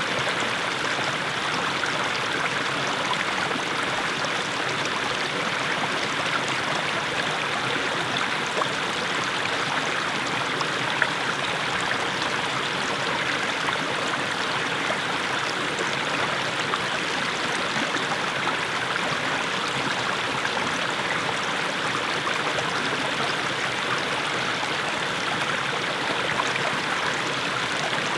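Small mountain stream splashing steadily over low steps of mossy stones.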